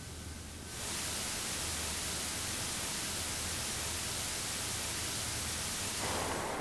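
Television static hiss that cuts in abruptly about a second in and holds steady and loud. Near the end it turns into a duller rushing noise.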